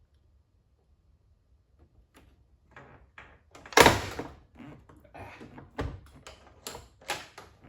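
1981 Corvette door handle and latch mechanism being worked by hand to test a newly lengthened linkage rod: a run of clicks and clacks, with one loud clunk about four seconds in.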